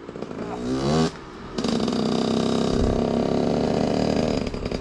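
Dirt bike engine under throttle, coming in loudly about one and a half seconds in and holding at steady high revs.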